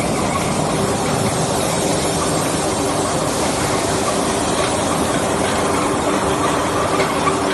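Steel coil slitting line running: a steady mechanical drone with a faint steady hum, as steel coil slit into strips feeds through the slitter and winds onto the recoiler.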